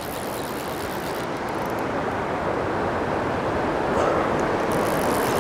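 Steady rush of river water flowing over stones, an even noise that grows slightly louder toward the end.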